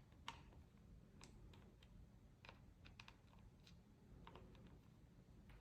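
Faint, irregular small clicks and ticks of a small Phillips screwdriver working a tiny screw out of a laptop's internal frame, over low room hum.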